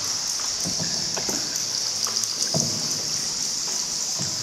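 Water splashing and trickling around a small boat moving through a cave river, with scattered short drips and knocks and a steady high hiss.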